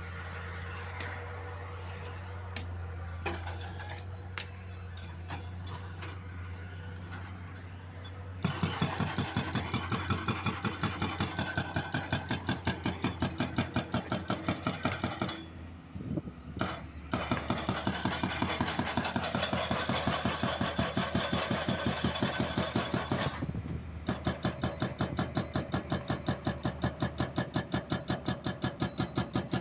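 Excavator diesel engine running steadily, then about eight seconds in a hydraulic breaker on a CAT 320C starts hammering concrete in a fast, even beat. The hammering stops for about a second and a half midway and briefly again later.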